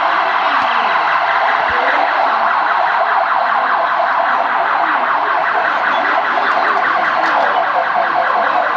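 A siren sounding loudly and without a break, a steady wavering wail.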